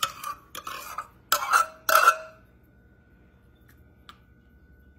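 Metal cup scraping and clinking against kitchenware while scooping a thick strawberry gelatin mixture. Four quick strokes in the first two seconds; the last one rings briefly.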